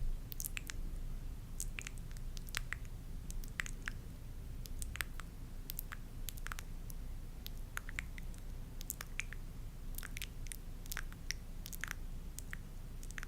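Close-miked ASMR sounds: irregular small clicks and squishy crackles, several a second, over a steady low hum.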